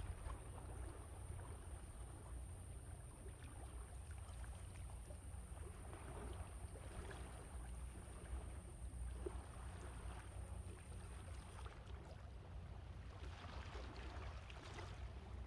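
Sea waves washing in and out, swelling twice, about halfway through and near the end, over a steady low rumble of wind on the microphone.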